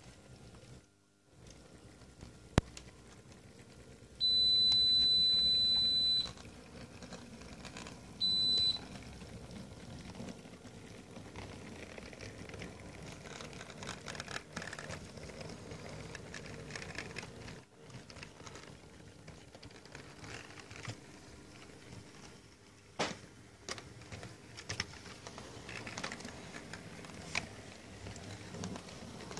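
Sound-equipped model steam locomotive, the SNCF 232 U 1, giving a long shrill whistle of about two seconds, then a short one, from its sound decoder. It then runs on with a steady low running noise, and several sharp clicks come near the end.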